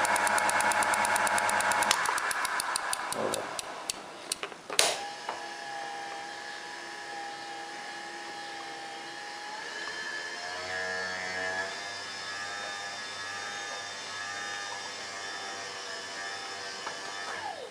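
Homemade metal lathe's spindle running, then switched off about two seconds in and coasting to a stop, with a falling whine and a ticking that slows as it winds down. A sharp click comes a few seconds later, then a faint steady whine until the end.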